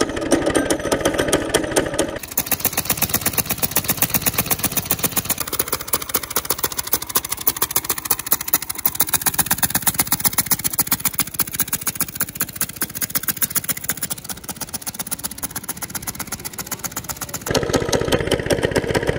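Small go-kart engine running with its exhaust blown through a brass trumpet, rapid even firing pulses throughout. It is louder with a strong pitched tone for the first two seconds and again near the end, thinner in between. The trumpet is super restrictive to airflow, leaving the engine struggling and underpowered.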